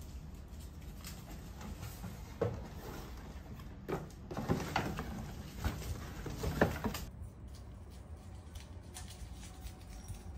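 Crumpled A4 paper crinkling and rustling as a toy poodle noses through and tears it looking for treats, in a run of short, sharp bursts that die down about seven seconds in.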